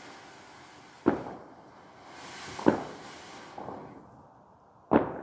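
Backyard fireworks going off: three sharp bangs, about a second, two and a half seconds and five seconds in, each with a short echoing tail. A rushing hiss leads into the middle bang, and a faint crackle follows it.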